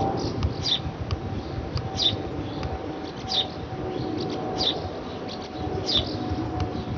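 A bird repeating a short, high, downward-sliding chirp about every second and a half, over the steady low rumble of a Boeing 777-300ER jet airliner passing overhead.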